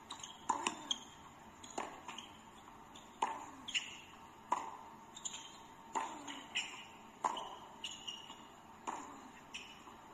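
Tennis rally on a hard court: sharp pops of racket strikes and ball bounces about every second, with short high squeaks of shoes on the court between hits.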